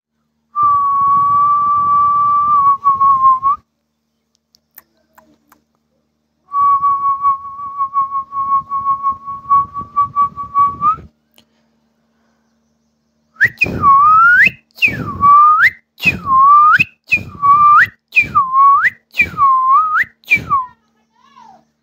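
Whistling: a long held note, then a second long note with a slight flutter, then about seven quick swoops that dip and sweep sharply back up.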